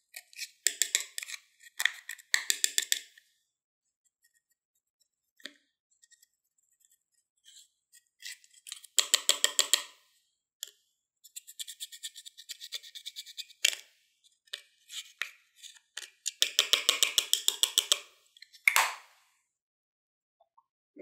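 A small metal tool scraping pressed eyeshadow out of a plastic palette pan: five runs of quick rasping strokes, with a few sharp single clicks between them.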